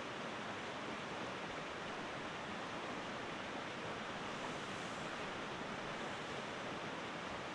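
A river rushing past in a steady, even flow of water noise.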